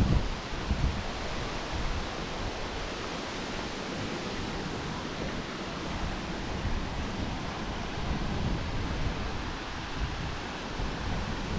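Steady rushing of a waterfall, with wind gusting on the microphone as uneven low rumbles.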